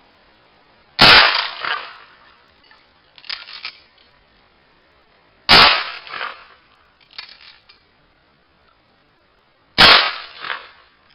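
Three shots from a 12-gauge pump-action shotgun, about four and a half seconds apart, each followed a second or two later by a short run of mechanical clacks as the pump is worked to chamber the next shell.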